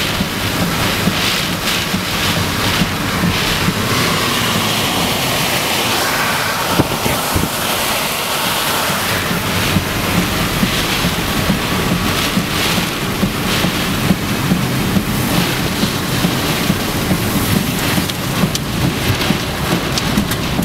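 Heavy thunderstorm rain and wind beating on a moving car, heard from inside the cabin, with wind noise on the microphone. A steady loud rush with frequent short hits.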